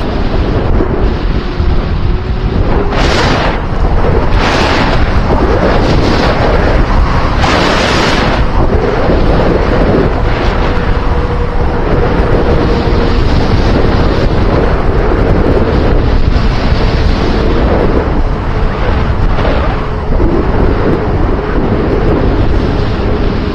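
Loud wind rumble buffeting the microphone, with a faint steady hum underneath and brief louder rushes about three, four and a half, and eight seconds in.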